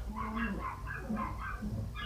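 A dog whining and yipping in a quick run of short, high cries, over a low steady hum.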